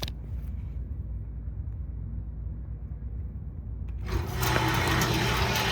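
Homemade bandsaw mill running on its electric motor with a steady low hum. About four seconds in, a louder, hissing machine noise rises and holds.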